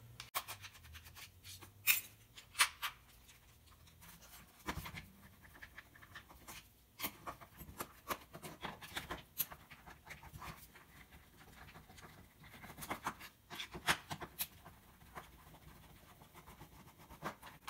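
Small precision screwdriver backing screws out of a plastic stove housing: scattered soft clicks and scrapes at irregular moments, with quiet gaps between.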